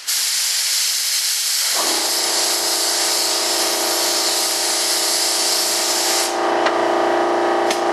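Compressed air hissing loudly from a leaking air hose. About two seconds in, an air compressor's motor starts and runs with a steady hum. The hiss cuts off about three-quarters of the way through while the compressor keeps running.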